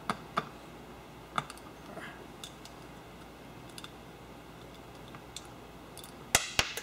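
Light metallic clicks and taps of small nuts being handled and threaded by hand onto the oil sump studs of an engine, a few scattered at first, then a quick run of louder clatters near the end as a small part is dropped.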